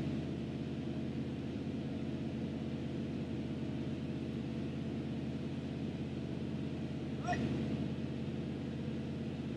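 1976 Chevy C65 log truck's engine running steadily at a constant speed, with a brief voice-like call about seven seconds in.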